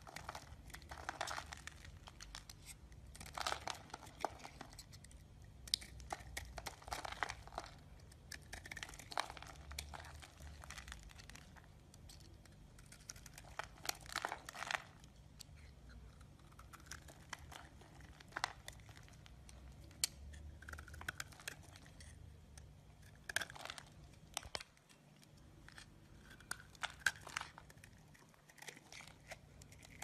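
Utility knife blade shaving and cutting into a bar of soap, with crisp crunching and crinkling as shavings break off, coming in irregular clusters of quick strokes.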